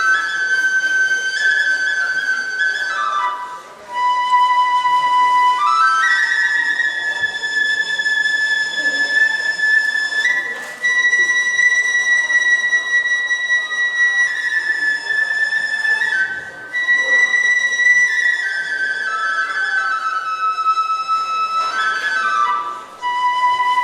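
Japanese bamboo kagura flute playing a slow solo melody of long held, high notes that step up and down, with a short break for breath about every six seconds.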